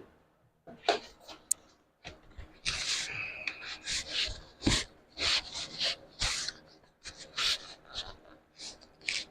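Hand work on a sheet-metal repair panel: irregular rasping, scraping strokes about one or two a second, with a click and a couple of sharp knocks.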